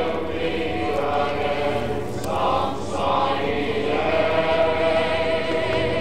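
Boeing B-17G Flying Fortress's four Wright R-1820 Cyclone radial engines droning in flight, a chord of several steady tones that drift slowly in pitch.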